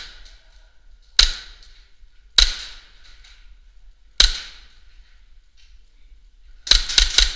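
Airsoft pistol firing: three single sharp shots a second or two apart, then a rapid string of about five shots near the end. Each crack echoes briefly down the bare corridor.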